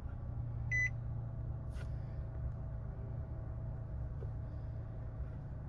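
Nissan MR20DD four-cylinder engine idling steadily just after a normal start, with one short electronic beep about a second in.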